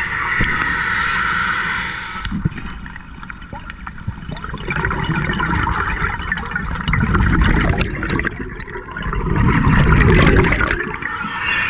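Scuba diver breathing underwater through a regulator: a hissing inhale at the start, then two long, loud rushes of exhaled bubbles, about three seconds apart.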